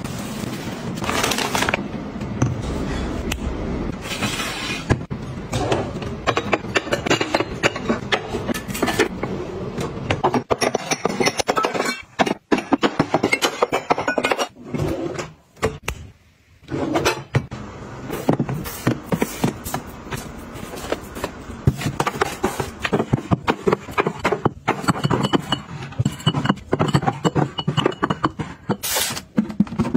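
Dense run of small knocks, clicks and clinks from household containers being handled and set down: plastic cup-noodle tubs stacked in a cabinet, ceramic mugs clinking in a drawer, and glass soda-water bottles clinking on a shelf.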